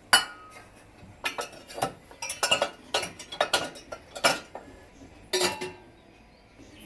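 Metal dishes and utensils clattering and clinking as they are set into a dishwasher rack: a loud clank at the start, then a run of knocks and rattles, and one more clatter near the end.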